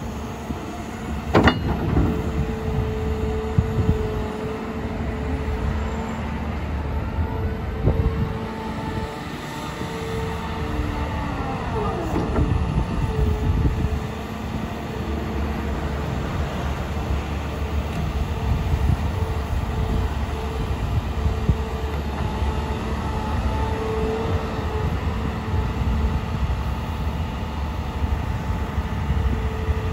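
2015 Caterpillar M318F wheeled excavator running, its diesel engine and hydraulics working as the boom, stick and bucket are moved, with a steady whine that breaks off and returns. A sharp knock comes about a second and a half in.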